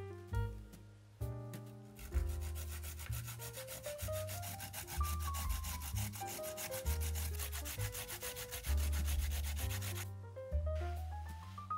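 A carrot scraped quickly up and down a fine metal grater: rapid, even rasping strokes that start about two seconds in and stop near the end. Background music plays throughout.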